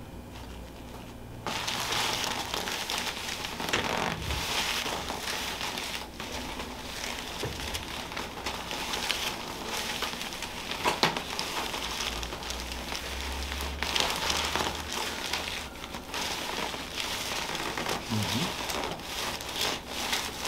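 Rustling and crinkling handling noise that starts suddenly about a second and a half in and goes on unevenly, with a few sharp clicks.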